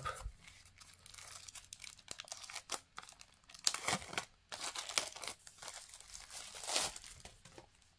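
Thin clear plastic wrap crinkling and tearing as it is peeled off a power bank by hand, in irregular crackles, with a longer rip near the end.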